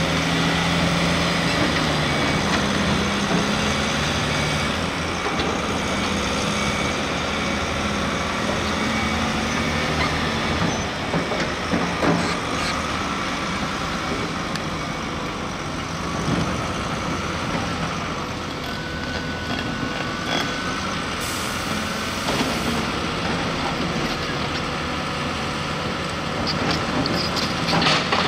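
Diesel engine of a Volvo A25 articulated dump truck running steadily as the loaded hauler drives slowly, with a brief hiss about three-quarters of the way through and a few sharp rattles near the end.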